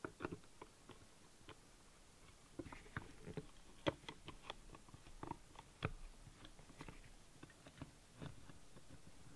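Faint, scattered small clicks and light scraping of a screwdriver turning a short screw out of an air rifle's receiver, with the small parts being handled.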